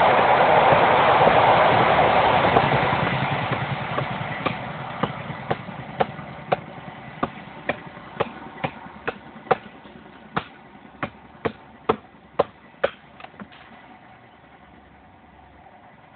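Loud, steady noise of a passing vehicle fades away over the first few seconds. Then a kudi-style bushcraft knife chops into a wooden stick resting on a stump: about twenty sharp chops, roughly two a second, that stop a few seconds before the end.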